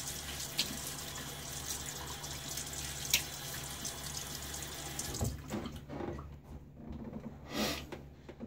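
Bathroom sink tap running with splashes as cool water is splashed onto the face for shaving prep. The tap shuts off about five seconds in, followed by a few soft rustles of a towel.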